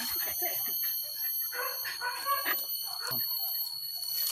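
Hunting dog giving short whines and yelps amid rustling through leaf litter and brush, over a steady high-pitched ringing drone.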